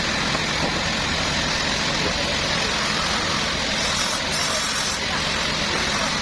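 Sawmill machinery running with a steady, even noise and a low hum underneath, unchanging throughout.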